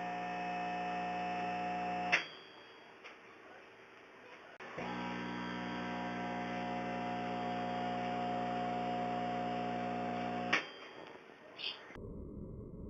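Microwave oven running with a steady electrical hum while plasma forms inside. It cuts off with a click about two seconds in, starts again a couple of seconds later, and cuts off with another click near the end, followed by a further short click.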